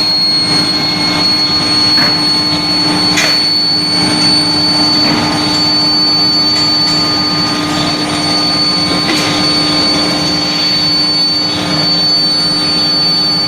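Steel plate induction hardening machinery running: a steady industrial hum with a constant high whine, and a few light knocks.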